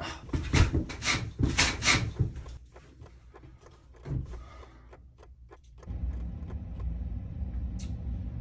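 A quick run of short, sharp sounds, then the bathroom door being handled and opened about four seconds in. After a short lull, a steady low hum begins.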